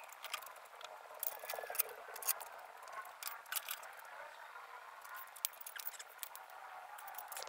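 Light, scattered clicks and scrapes of thin sheet metal being handled and clamped in a bench vise, with a long metal strip flexed by hand near the end.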